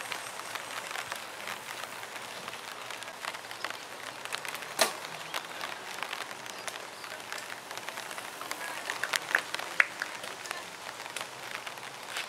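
Outdoor ambience beside a wet cyclocross course: a steady hiss with many scattered clicks and taps, and a sharper tap about five seconds in and another near ten seconds.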